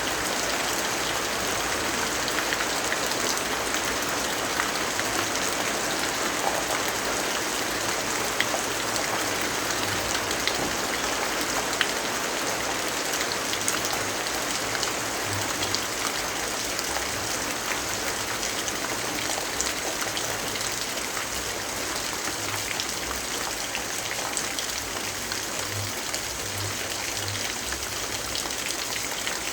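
Steady rainfall, an even hiss of rain with scattered individual drops tapping.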